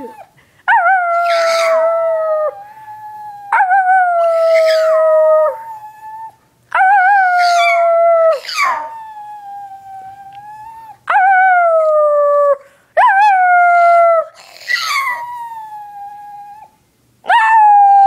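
A dog howling again and again: about six long howls, each a couple of seconds long, that jump up at the start and then slide slowly down in pitch.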